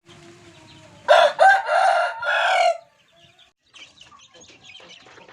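A rooster crows once, a cock-a-doodle-doo in four joined parts lasting under two seconds, about a second in. Faint scattered clicks follow.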